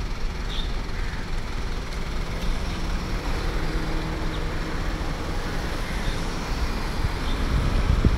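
Steady low rumble of road traffic, with a faint constant hum underneath.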